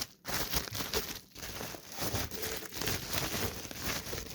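Packaging being handled and unwrapped, crinkling and rustling irregularly, with a brief pause about a second in.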